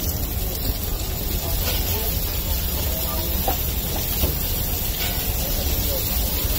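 Chopped onion and masala mix sizzling on a large oiled flat griddle (tawa), a steady hiss over a low hum, with faint voices in the background and a few light clicks.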